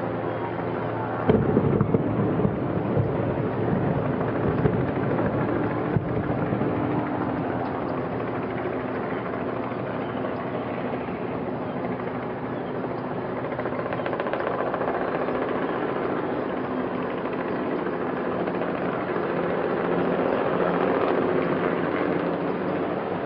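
Underwater demolition charges on bridge foundations going off: a sudden blast about a second in, then a rapid crackling string of detonations for about five seconds. A steady engine drone runs underneath, and a rushing noise swells near the end.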